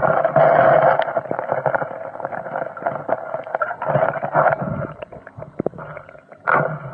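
Spring water splashing and gurgling close to the microphone in surges that rise and fall, loudest in the first second and again briefly near the end.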